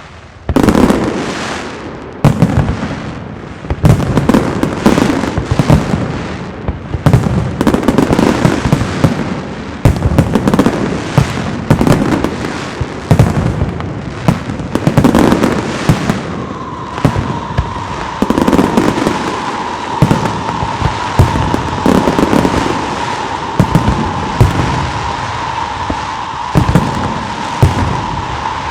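Castillo fireworks by Pirotecnia Zaragozana: dense, rapid bangs and crackling shell bursts, with heavier booms every second or two. From a little past halfway, a steady whistling tone runs on beneath the bangs.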